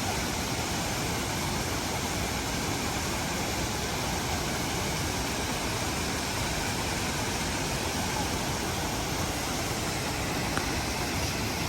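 Waterfall rushing steadily, an even unbroken noise of falling water.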